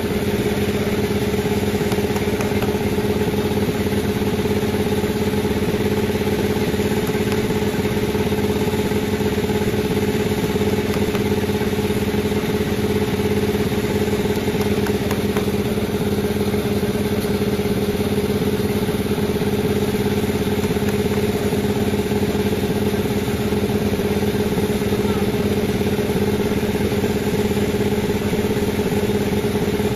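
Panda36 sawmill running with a steady drone at a constant pitch.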